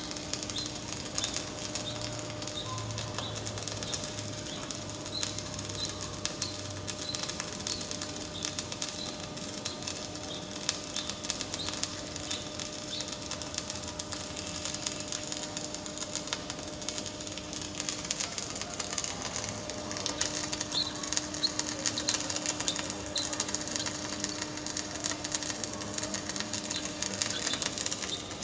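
MIG welding arc crackling steadily as the weld is run: a dense, rapid crackle of tiny clicks. A faint steady hum sits underneath.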